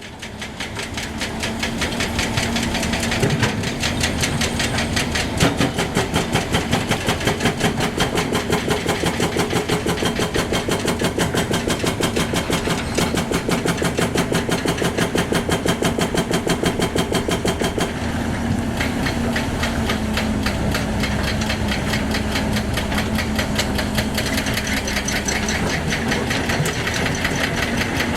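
Heavy excavator's diesel engine running, with a fast, even knocking pulse; its note shifts about three seconds in and again around eighteen seconds.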